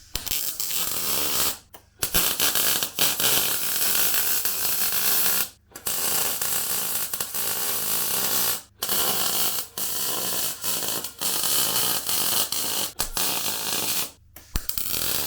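Electric welding arc crackling and hissing as steel bracket pieces are welded on, in several runs with four short pauses between welds.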